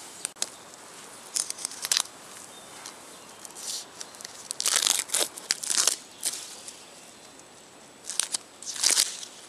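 Birch bark being cut and peeled from a log with a knife: scraping and tearing rasps in several short bursts, the longest about five seconds in.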